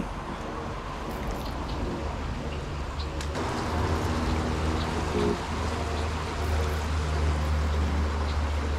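Water running steadily down a small spillway, with a deep steady rumble underneath that grows louder about halfway through.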